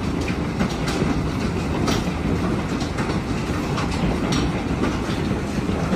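Steady, loud rushing storm noise from a severe thunderstorm's wind and pouring rain, with scattered sharp hits through it.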